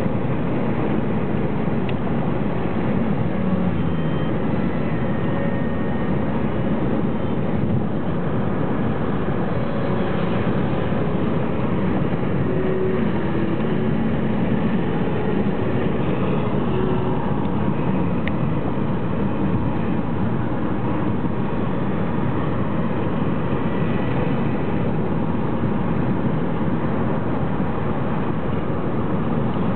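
Steady road and engine noise of a car driving, heard from inside the cabin, with no sudden changes.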